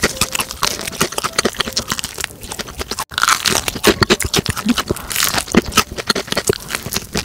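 Crispy fried chicken being bitten and chewed close to the microphone: a dense run of crackling crunches from the fried crust.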